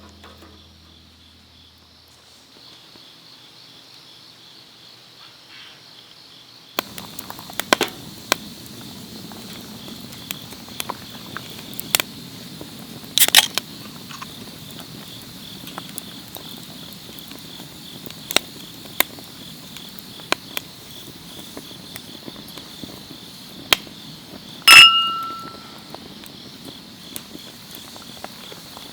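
Crickets chirping in a steady pulsing trill, joined about seven seconds in by a wood campfire in a fire pit crackling and popping with scattered sharp snaps. Near the end a single loud metallic clink rings briefly.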